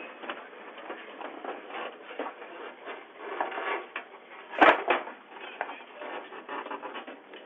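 Rustling and small clicks of mail being handled at a front door, heard through a doorbell camera's thin, tinny microphone, with one loud knock a little past halfway.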